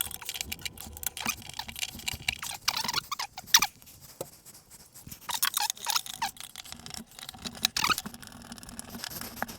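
Hand work on kitchen wall cabinet fittings: irregular clicks, scrapes and a few short squeaks as parts are handled and fitted.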